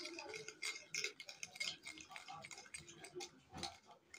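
Metal spoon stirring a thick paste in a small porcelain bowl, giving faint, irregular light clicks and scrapes against the bowl.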